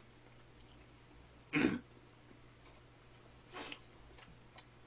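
A person gives a short throat-clearing cough about a second and a half in, and a second, fainter one about two seconds later.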